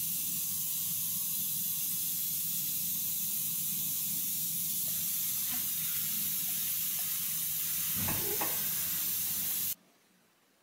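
Steady hiss with a low hum underneath and a few faint clicks, cutting off abruptly about a second before the end.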